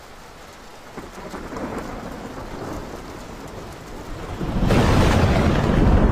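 Rain falling steadily with thunder, rising to a loud, long roll of thunder about four and a half seconds in.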